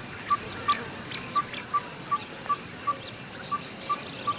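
Tropical forest ambience: a short, single-pitched call note repeated steadily about two and a half times a second, with scattered higher bird chirps over a faint hiss.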